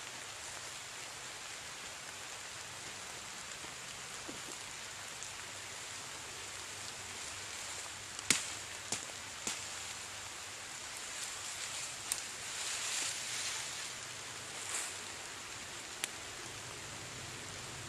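Steady rain falling, an even hiss, with a few sharp clicks or snaps scattered through the second half.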